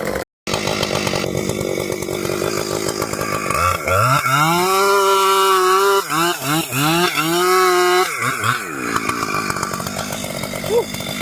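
Gas chainsaw revving up about a third of the way in and running at full throttle through a cut, pitch dipping briefly twice, then easing back off near the end.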